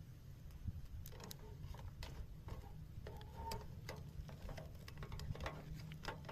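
Irregular light clicks and taps, thickening from about a second in, over a low steady rumble.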